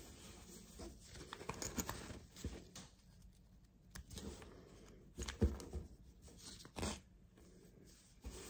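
Small embroidery scissors snipping loose threads from a stitched textile piece: scattered faint snips and clicks, with a few louder ones about halfway through.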